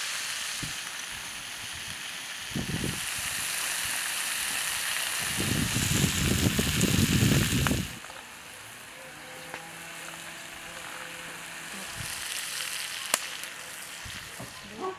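Mackerel and red peppers sizzling on a round metal griddle over a wood fire, a steady hiss. About five and a half seconds in, a loud low rumble swells for a couple of seconds. Then the sound drops off sharply and goes on quieter, with a faint steady low hum and a single click near the end.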